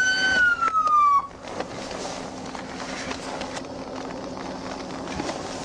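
Police car siren wailing down in pitch and cutting off about a second in, followed by the steady low hum of the idling patrol car.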